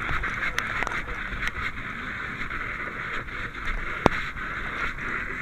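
Steady rushing hiss with scattered sharp clicks and cracks; one louder crack about four seconds in.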